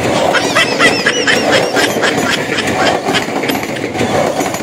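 Electric commuter train (KRL) running past on the track: a steady rumble of wheels on rails, with quick high squeaky chirps and regular clicks over it.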